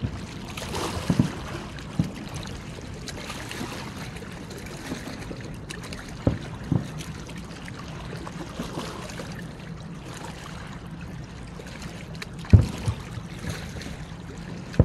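Distant aerial fireworks shells bursting with low booms, spaced irregularly, the strongest pair about twelve and a half seconds in, over a steady background hiss.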